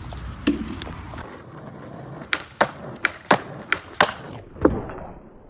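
Skateboard on asphalt: a run of sharp clacks and knocks, about ten in three seconds, as the board and wheels strike the road during tricks. A low rumble comes before it at the start.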